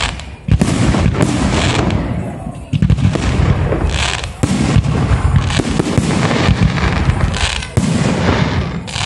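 Aerial firework shells bursting one after another in a dense barrage, the booms overlapping into a continuous rumble. After a brief lull, a loud blast comes about half a second in.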